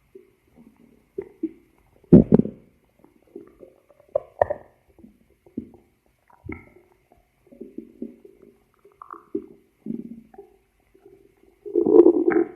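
Human stomach growling: a run of irregular low gurgles and short pops, with a sharp loud gurgle about two seconds in and a longer, louder rumble near the end.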